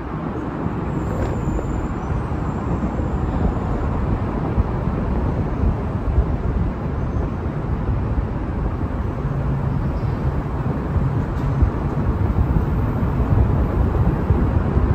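Steady low rumble of road traffic on the elevated highway overhead, rising a little in the first second.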